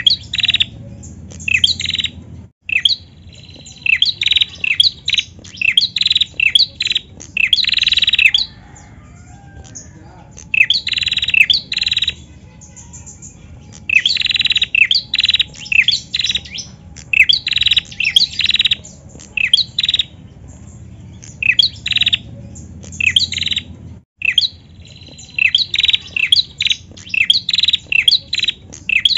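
Caged female prenjak calling in rapid bouts of sharp, high chirps, with short pauses between the bouts.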